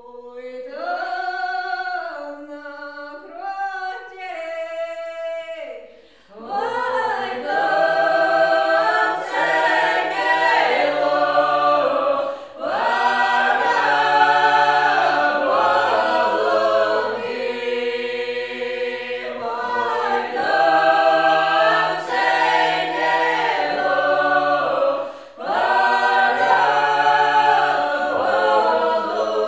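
Unaccompanied Ukrainian folk singing by a small mixed ensemble: one woman's voice sings the opening line alone, and about six seconds in the full group of women's and men's voices joins in close harmony. The group sings on in long phrases with brief breaths between them.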